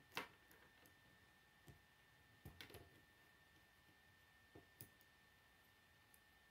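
K'nex plastic rods and connectors clicking as they are snapped together and handled: a few scattered sharp clicks, the loudest just after the start and a quick cluster about two and a half seconds in.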